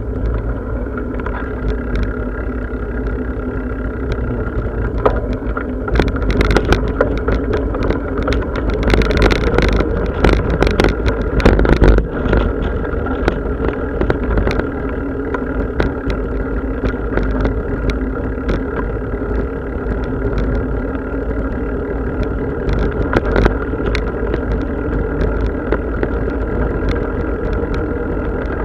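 Bicycle on the move: a steady rolling rumble and drone, with scattered rattles and clicks that thicken into a louder, busier stretch from about six to twelve seconds in.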